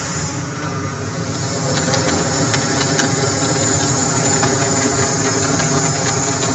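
Vehicle engine idling steadily, an even drone with no revving and a few light clicks over it.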